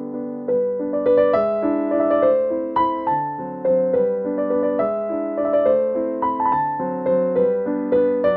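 Background piano music: a light melody of short notes over changing chords at a moderate pace.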